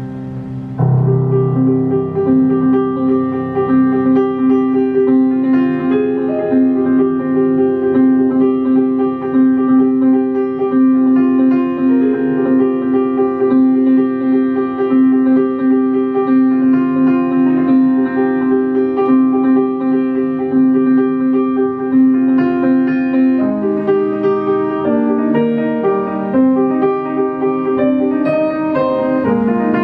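Live jazz on grand piano: a steadily repeated higher note over a held low note, the music turning to moving chords about 23 seconds in.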